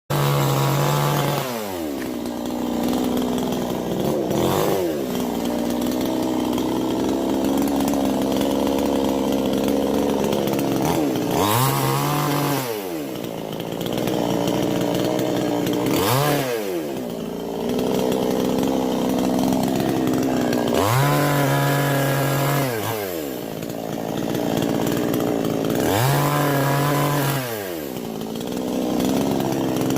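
Chainsaw running, its engine speed dropping sharply and climbing back again and again, with steady high-speed stretches of several seconds between: the throttle worked on and off while cutting a coconut palm.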